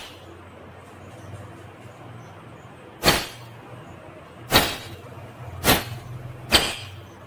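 Indian ringneck parrot giving four short, harsh squawks, the first about three seconds in and the rest in quick succession, over a steady low hum.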